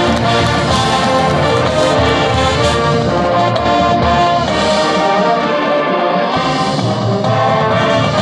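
Marching band's brass section playing loud held chords. The lowest bass thins out briefly past the middle.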